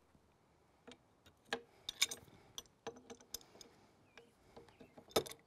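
Scattered light metallic clicks and clinks from an open-end wrench working on hydraulic fittings while a quick coupler is loosened from the loader manifold. The sharpest click comes near the end.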